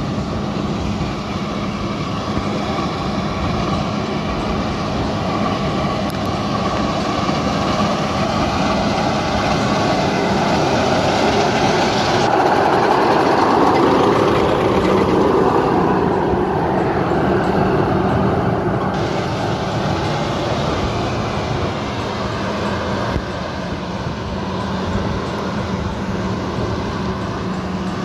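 Rice combine harvester's engine running steadily under load while it cuts the field, with a constant low hum that swells louder in the middle and eases off again.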